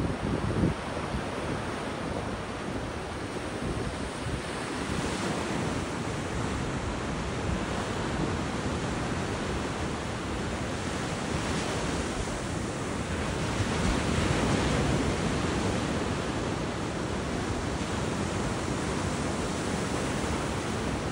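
Ocean surf breaking and washing up the beach in a steady wash, swelling louder about twelve to fifteen seconds in. Wind rumbles on the microphone.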